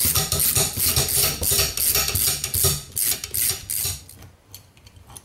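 Ratchet wrench with a 10 mm socket on a long extension clicking rapidly as it backs out the steel bolts of a Yamaha F2.5 outboard's water pump housing. The clicking thins out after about three seconds and stops about a second later.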